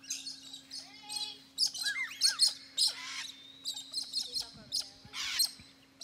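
Several birds calling at once: a quick run of chirps and whistled, gliding notes, with harsh, rasping calls about three and five seconds in.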